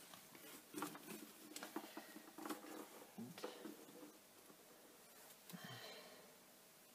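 Faint handling sounds: soft rustles and small clicks of hands fastening a cord necklace and its metal clasp around a fabric-covered jewellery display bust.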